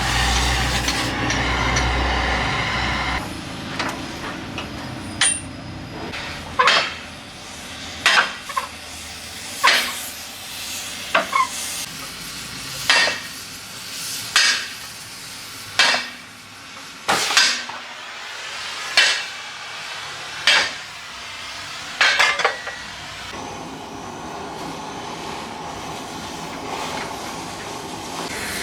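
Heavy hammer blows on steel during scrapping, over a dozen sharp ringing strikes roughly every second and a half. A steady rumble runs before them, and a steady noise follows near the end.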